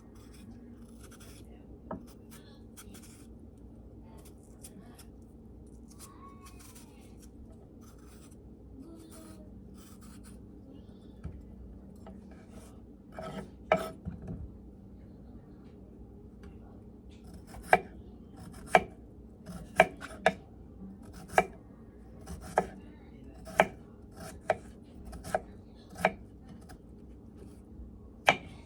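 Knife chopping on a cutting board in slow single strokes, about one a second, through the second half. Before that there are only faint scattered clicks and handling noise.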